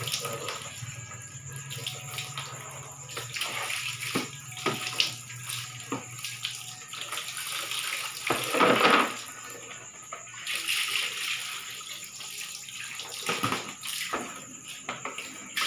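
Water from a tap splashing into a plastic basin as it is rinsed, with scattered knocks of the basin and a louder splash about eight seconds in.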